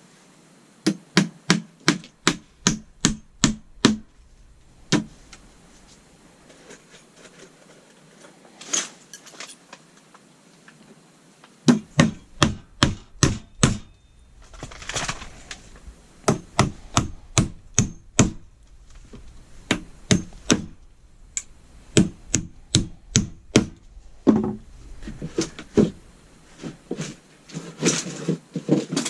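Hammer blows on wood, in runs of quick, evenly spaced strikes with short pauses between runs, like nails being driven.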